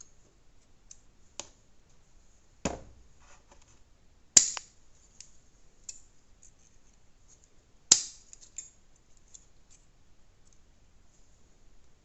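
Leatherman Rev multi-tool's wire cutters snipping through wire: three sharp snaps, a little under 3 s in, about 4.5 s in and near 8 s in, with fainter clicks of the tool's jaws between.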